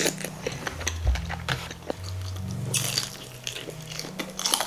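Close-miked eating sounds: crunching bites and chewing of crispy battered fried pork (guobaorou), a rapid run of short crackles with denser bursts about three seconds in.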